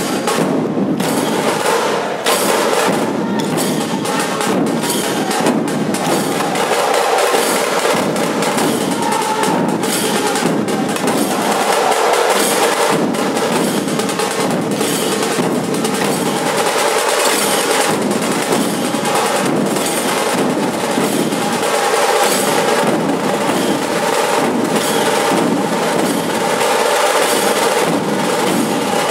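Dhol tasha ensemble playing: big two-headed dhol barrel drums, small tasha kettle drums beaten with sticks and clashing brass jhanj cymbals, in a loud, dense, continuous rhythm.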